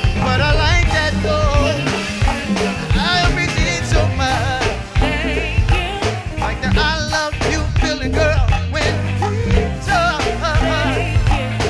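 Live go-go band playing a dense groove: drum kit and a heavy bass line, with a wavering melody line over them.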